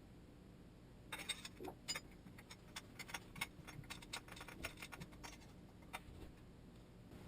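Light clicks and ticks of small fork parts being handled during fork-cartridge reassembly: an irregular run of sharp little clicks, starting about a second in and thinning out by about six seconds.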